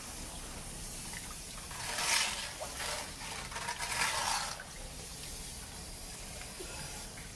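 Water rushing from a high-pressure hose fed down a car wash pit drain pipe, flushing it toward the reclaim pit, with a steady hiss that swells louder twice, about 2 and 4 seconds in.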